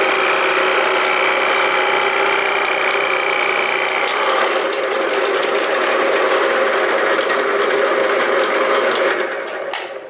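Benchtop drill press running steadily with its bit boring into a block of wood, a steady machine hum with a few held tones. The tone shifts about four seconds in, and the sound fades away near the end.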